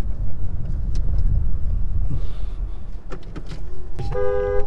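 A car in motion heard from inside the cabin: a steady low engine and road rumble, with a few light clicks about three seconds in. Near the end an electronic beep sounds and a steady tone begins.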